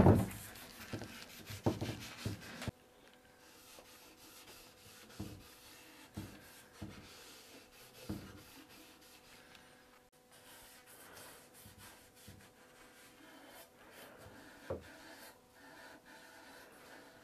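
Cloth in a gloved hand rubbing stain along the turned wooden legs and stretchers of a chair: soft wiping with a few light knocks, busier and louder in the first few seconds, then quiet.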